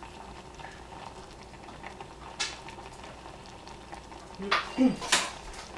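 Pot of fruit filling simmering on a turned-down stove burner, a steady soft bubbling hiss. A click about two seconds in and a few louder knocks near the end.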